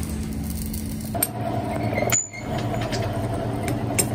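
Steady hum of workshop machinery with a few sharp metal clinks, changing abruptly about two seconds in.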